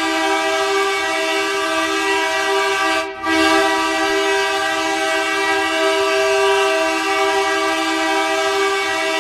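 Hockey arena goal horn blowing: one long, loud, chord-like air-horn blast that breaks for a moment about three seconds in and then sounds again.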